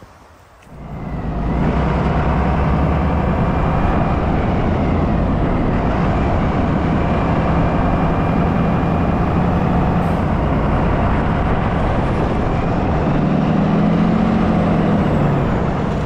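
Motor vehicle engine running steadily, coming in about a second and a half in, its pitch rising briefly near the end.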